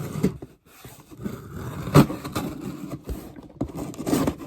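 Box cutter scraping and slicing through the tape of a cardboard box, with a sharp knock of the box about two seconds in.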